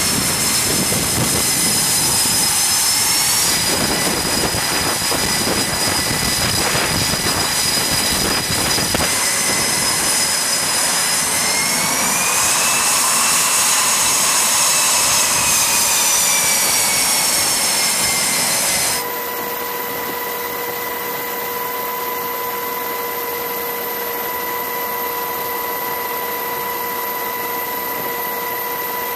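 F/A-18 fighter jet engines running on a carrier flight deck, a loud rush with a high whine that rises and falls. About two-thirds of the way through it cuts off suddenly to a quieter steady hum with a few fixed tones.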